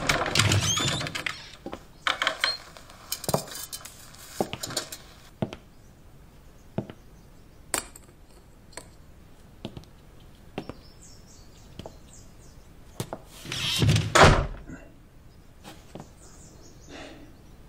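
Wooden door opening with a short squeak and knocks, then scattered footsteps and light clinks of dishes set down on a wooden table, and one heavier thud about fourteen seconds in.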